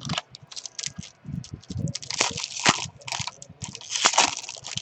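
Foil baseball-card pack wrappers crinkling and tearing in irregular crackly bursts as packs are opened and handled.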